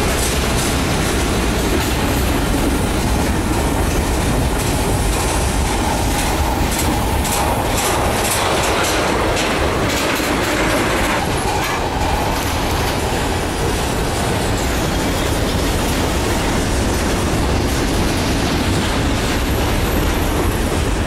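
Freight train cars rolling steadily past, wheels clicking over the rail joints, with a faint wheel squeal in the middle.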